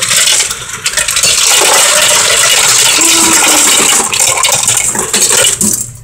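Soda fountain ice dispenser dropping ice cubes into a paper cup: a loud, continuous clatter that stops shortly before the end.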